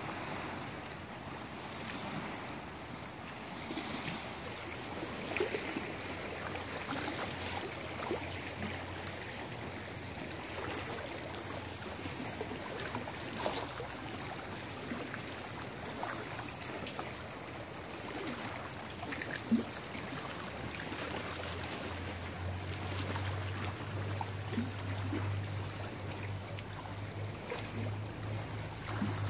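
Lake water lapping and splashing against rocks and the shoreline, a steady wash with small splashes. About two-thirds of the way through a low steady hum joins in.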